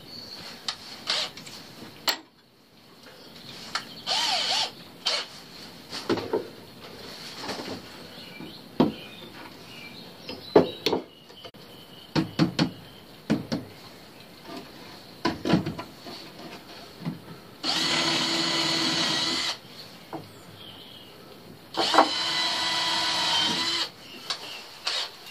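Cordless drill running in short bursts: two steady runs of about two seconds each in the second half and a brief one near the start, with scattered knocks and clatter of wood and tools being handled between them.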